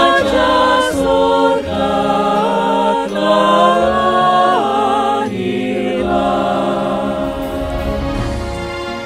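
Small mixed choir of men's and women's voices singing a Christmas song together, holding long notes with a wavering vibrato.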